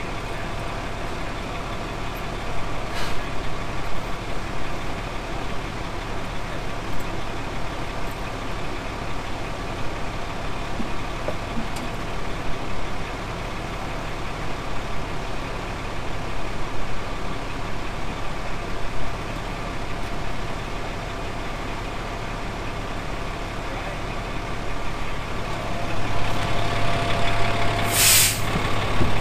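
Heavy truck engine running steadily at idle, with one short, sharp hiss of released air near the end.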